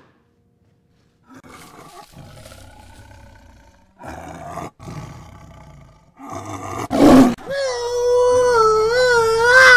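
A loud short burst, then a long, loud, wavering wail with a buzzy, many-toned edge that rises and falls in pitch, starting about eight seconds in.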